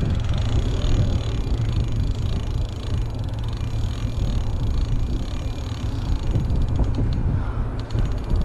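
Wind buffeting the microphone in a steady low rumble, with a brief run of faint rapid ticks near the end.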